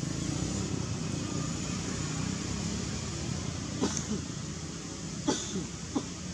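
Steady outdoor background rumble like distant traffic, with three short, sharp clicks about four, five and six seconds in.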